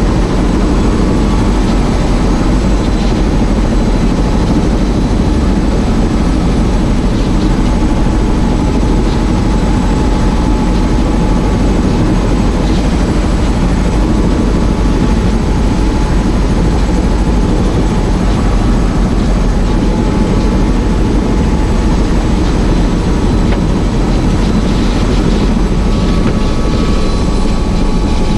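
Tour helicopter in flight: steady, loud rotor and engine noise, heaviest in the low end, with a faint steady whine above it.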